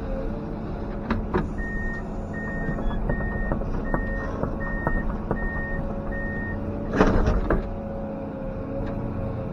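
Komatsu PC210 excavator's diesel engine running steadily, while a reversing alarm beeps seven times at an even pace of a little more than one beep a second. About seven seconds in, a short burst of crashing and clattering, the loudest sound, as the demolition goes on.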